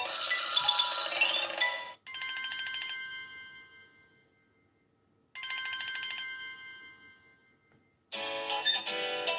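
Samsung Galaxy Tab 3 Lite ringtones playing through the tablet's speaker. A busier melody ends about two seconds in, then a single bright chime sounds twice, each ringing out and fading away over about three seconds. A new melody starts near the end.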